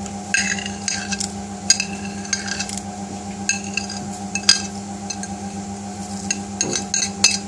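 Light clinks and taps of a small bowl against a stainless steel pot as whole spices are tipped into the water, each tap ringing briefly, over a steady low hum.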